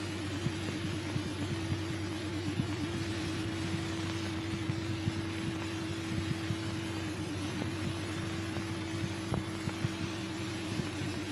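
Steady hiss and low hum of an old film print's soundtrack, with a wavering tone and scattered crackles and pops; no other sound.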